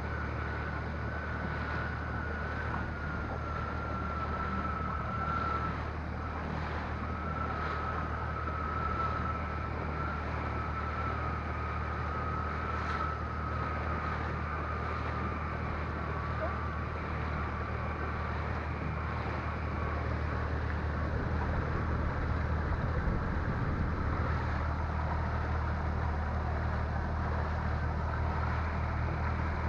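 Outboard motor on an inflatable boat running steadily under way, a constant low drone over the rush of water along the hull. A high whine drifts slowly lower and fades about two-thirds of the way through.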